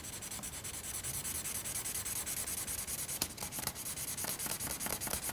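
Felt-tip marker scribbling rapid back-and-forth strokes on paper, a quick, even scratching rhythm while an area is coloured in solidly.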